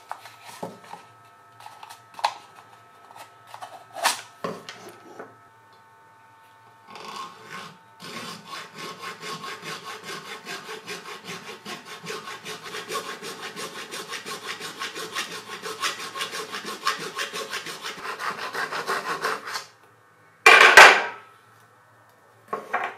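Hacksaw cutting through blue PVC pipe with rapid, even back-and-forth strokes that grow gradually louder over about twelve seconds, then stop abruptly. A few light knocks of the pipe being handled come before the sawing, and a single loud, short clatter follows it.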